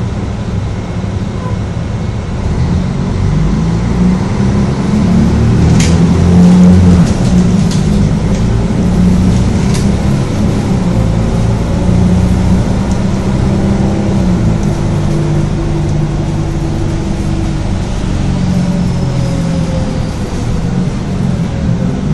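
Mercedes-Benz O-500UDA articulated bus's diesel engine running under way, swelling a few seconds in as it pulls, then holding a steadier drone. A few sharp knocks or rattles come through about six and ten seconds in.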